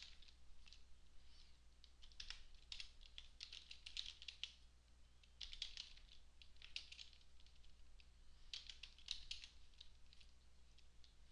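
Computer keyboard typing in several short bursts of keystrokes with pauses between, faint, over a low steady hum.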